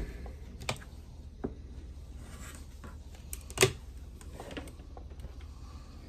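A few light clicks and taps from small items being handled on a sewing table, the loudest about three and a half seconds in, over a low steady hum. The sewing machine is not stitching.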